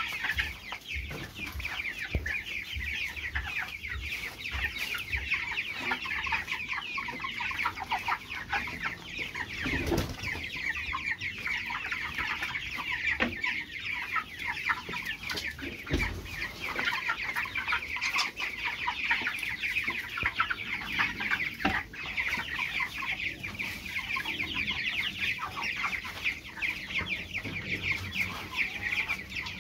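A flock of young broiler chickens peeping and chirping continuously in a dense, high-pitched chorus. A couple of dull knocks sound about ten and sixteen seconds in.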